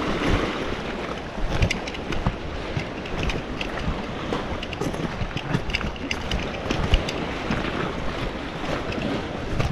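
Wind buffeting the microphone over moving sea water, with many scattered light knocks and clicks.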